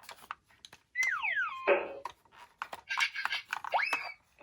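Cartoon-style sound effects: two quick falling whistle-like glides about a second in, a stretch of clattery noise, then a quick rising whistle near the end.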